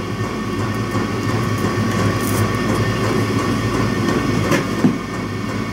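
Electric soldering gun humming steadily while held on, heating a thick cable connection, with a couple of light handling clicks about four and a half seconds in.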